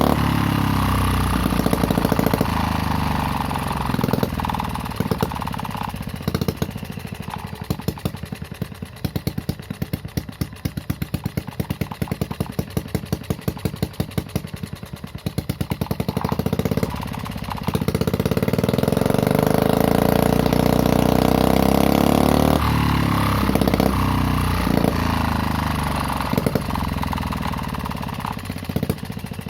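Homemade mini four-stroke engine with a new exhaust running with a deep, bassy note. It is blipped a few times, drops to a slow idle with each firing stroke distinct, is held at higher revs for several seconds past the middle, then is blipped again.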